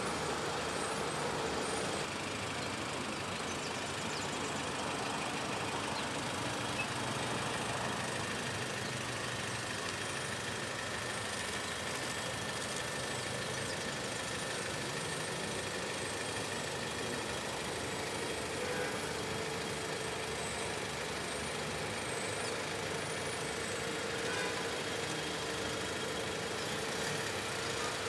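Steady engine noise from a slow-moving motorcade of police motorcycles and military vehicles.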